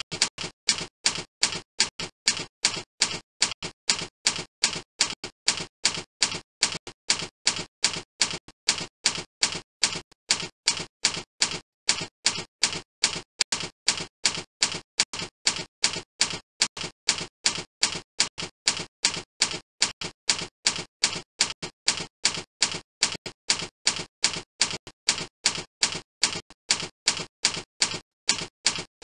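Typewriter-style typing sound effect: an even, unbroken run of sharp clicks, about three a second, marking on-screen text being typed out.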